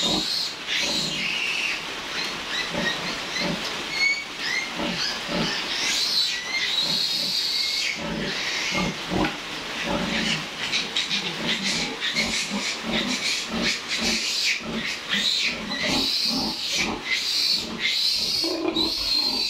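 Newborn piglets squealing shrilly and repeatedly while they are picked up and handled.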